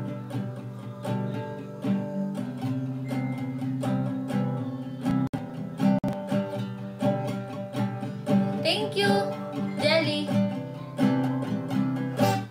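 Acoustic guitar strummed in a steady rhythm of chords, with a woman's voice singing a few notes about two-thirds of the way through.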